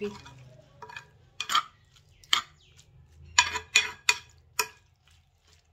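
A spoon clicking against an earthenware bowl of chaat as it is mixed: about seven separate clicks at uneven intervals, the loudest about three and a half seconds in.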